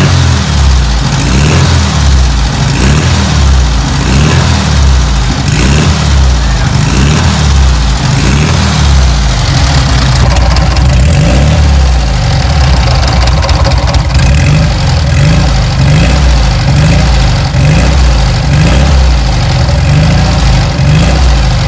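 Volkswagen Beetle's air-cooled flat-four engine running through new twin stainless-steel exhaust tips, revved again and again in short blips about once a second.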